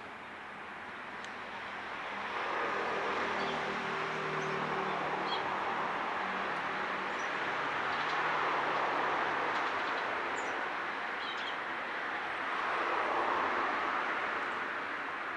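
Passing motor traffic: a steady engine-and-rush sound swells about two seconds in, with a second swell near the end. Faint short bird chirps sound over it.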